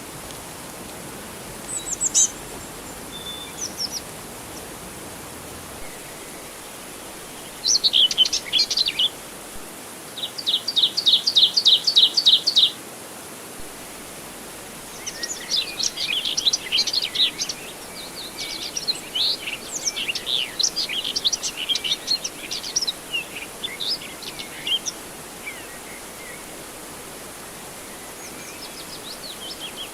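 Birds chirping and calling in scattered bursts over a steady, even background hiss. About ten seconds in, one bird gives a fast run of evenly repeated notes, about four a second for three seconds. From about fifteen to twenty-five seconds there is a busy stretch of overlapping chirps.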